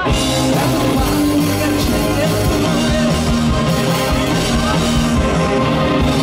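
Live indie rock band playing loud: electric guitar, drum kit and keyboards over a steady beat.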